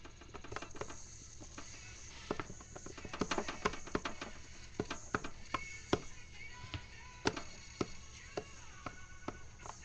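Plastic buttons of a button-grid MIDI controller clicking under quick, irregular finger taps, over electronic music with faint held tones being played live from it.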